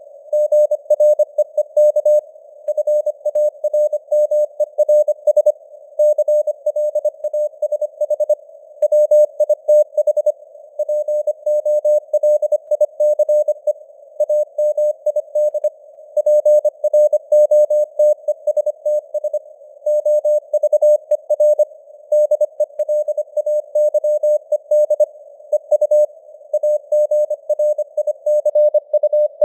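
Morse code (CW) at 25 words per minute: a single mid-pitched tone keyed on and off in quick dots and dashes over a narrow band of hiss, simulated receiver noise. The signal strength swells and fades from word to word, simulated QSB.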